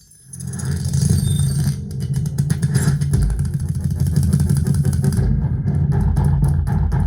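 Playback through a Zebronics Omega 7.1 home theatre speaker system with its subwoofer: a heavy, steady low rumble with a fast pulsing texture, starting just after a brief drop to near silence.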